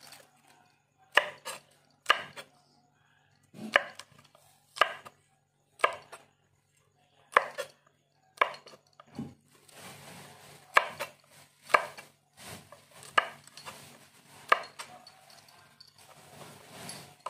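Knife chopping morning glory (water spinach) on a cutting board: single sharp chops, roughly one a second with uneven pauses. Softer rustling of the greens fills the gaps in the second half.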